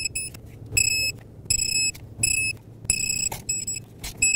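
Digital torque wrench beeping in short repeated bursts, about one every 0.7 seconds, signalling that the set torque is reached as the intake manifold bolts are tightened to spec. There are a few sharp clicks between the beeps.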